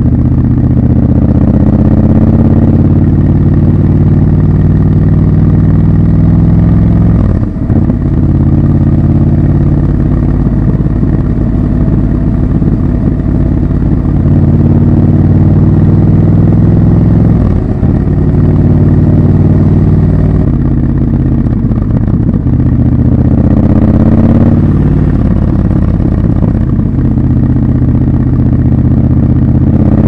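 Triumph Scrambler 1200 XC's 1200 cc parallel-twin engine and exhaust running under way, the revs climbing and falling again and again, with short drops in the sound about a quarter of the way in and again past halfway.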